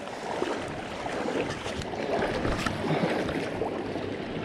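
High creek current rushing steadily, with scattered small clicks.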